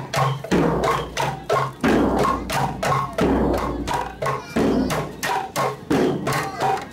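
A marching group of hand percussion, frame drums and other struck instruments, beaten live in a fast, steady rhythm of about four to five strikes a second, with a low drum note repeating under it.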